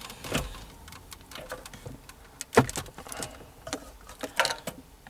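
Scattered plastic clicks and knocks as a wiring-harness connector is pressed and unplugged from the back of a factory car stereo, with the radio's metal chassis being handled; the sharpest click comes about two and a half seconds in.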